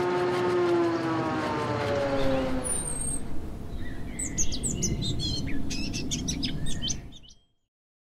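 Intro logo sound effect. A humming, engine-like tone slides down in pitch over a low rumble. Then birds chirp over the rumble in the second half, and everything fades out quickly at about seven seconds.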